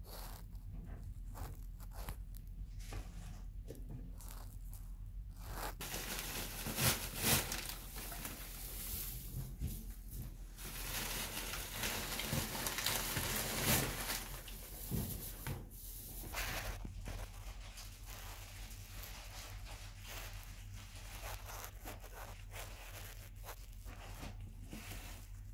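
Dry hay rustling and crackling, dense and loudest for about ten seconds in the middle, with scattered soft clicks before and after.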